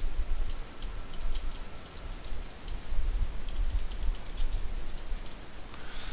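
Computer keyboard keys clicking in irregular runs of typing, over a low rumble.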